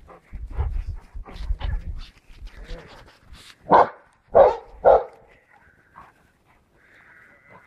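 Schapendoes dog barking three times in quick succession about four seconds in, after some low rumbling and knocks.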